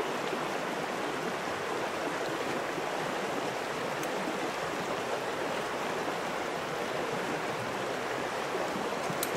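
Steady rushing of a stream, an even noise that does not change.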